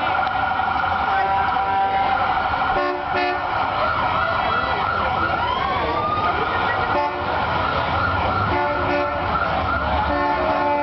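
Parade emergency vehicles' sirens wailing without a break, with repeated horn blasts and a few rising siren sweeps near the middle.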